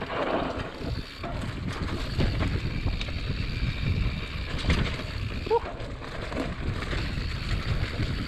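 Mountain bike riding fast down a dirt woodland trail: tyres rumbling over the ground and the bike rattling, with wind buffeting the microphone. A short squeak a little past the middle.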